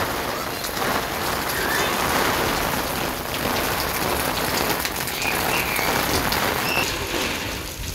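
Heavy rain falling on a flat concrete rooftop and its puddles: a steady, dense hiss of downpour.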